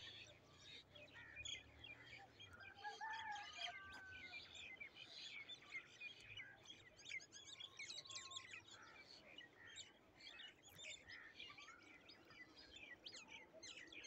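A faint chorus of many small birds chirping and twittering together, short high calls overlapping without a break.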